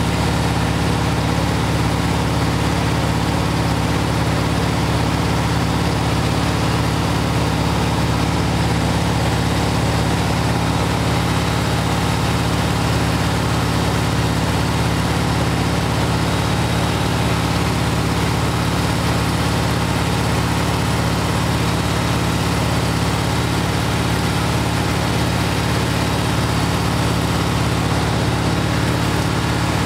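Air-cooled 36 hp Volkswagen flat-four engine running steadily at a high idle set near the red line, driving its belt-driven alternator under a heavy electrical load of over a kilowatt.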